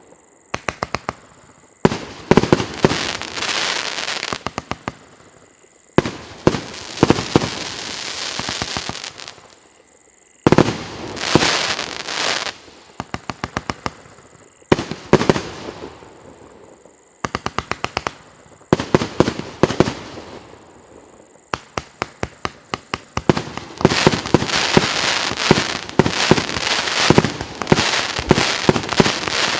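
Piroff 'Legends of the East' premium firework battery firing: runs of sharp, rapid reports, each trailing off into crackle, come in waves every few seconds. Near the end they merge into a dense, continuous barrage.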